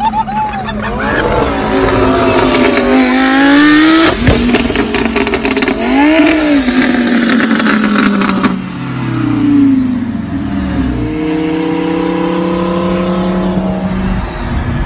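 Lamborghini Huracán V10 with exposed, open exhaust pipes, revving hard. The pitch climbs and falls several times, with a run of popping and crackling from about four to eight seconds in. It then settles into a steadier, slowly rising note.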